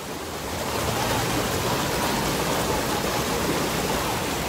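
Shallow river water rushing and burbling over rocks in a steady wash of noise, growing louder about a second in and then holding steady.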